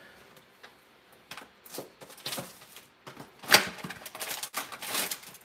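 Plastic wrapping being torn and crinkled open on a sealed trading-card display box: scattered clicks and rustles, the loudest snap about three and a half seconds in.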